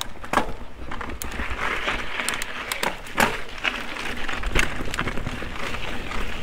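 Mountain bike rolling fast down a dirt singletrack strewn with dry leaves: a steady crunching rush of the tyres, broken by frequent sharp clicks and rattles from the bike.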